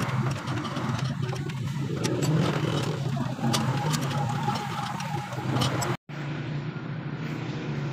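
An engine or motor running steadily with a low hum, with scattered light clicks over it; the sound drops out for a moment about six seconds in.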